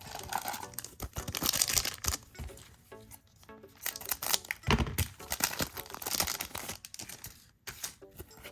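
A trading-card pack's wrapper being torn open and crinkled in the hands, in several irregular bursts of tearing and rustling, the strongest about a second in and again around four to six seconds in.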